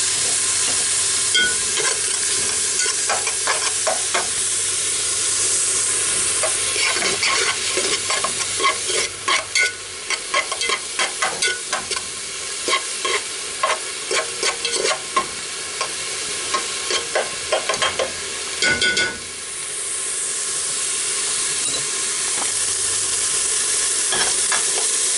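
Diced red onion, garlic and chili pastes (ají panca, ají amarillo) sizzling steadily in hot oil in a metal pot as the sofrito base fries, with a metal spoon scraping and tapping against the pot through much of the middle as it is stirred.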